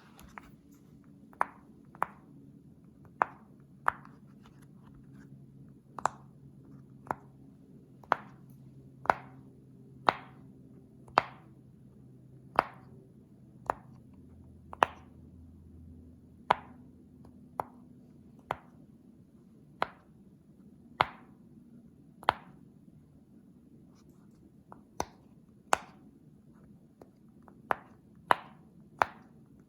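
Silicone push-pop fidget toy being pressed bubble by bubble, each bubble giving a sharp pop, about one pop a second at an uneven pace.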